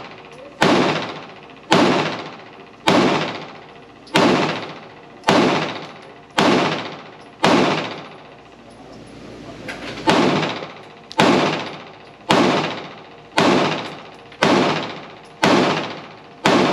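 PSA Dagger Compact 9mm pistol being fired in steady slow fire, about one shot a second, each shot followed by a decaying echo. Seven shots, a pause of about two and a half seconds about halfway, then seven more.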